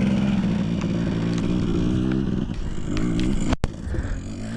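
Off-road motorcycle engine running steadily under throttle, its note wavering slightly; it eases off about two and a half seconds in, with a brief cut-out of all sound shortly after.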